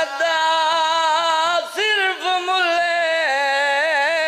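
A man singing a long, drawn-out melodic line in chanted recitation style, his held notes wavering and ornamented, with a short break for breath about two seconds in.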